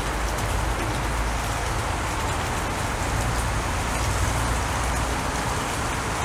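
Steady outdoor noise: an even hiss over a low rumble, with no distinct events.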